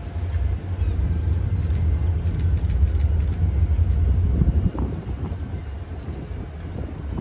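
Freight train cars rolling across a concrete viaduct: a low rumble with faint clicking from the wheels, easing off about two-thirds of the way through.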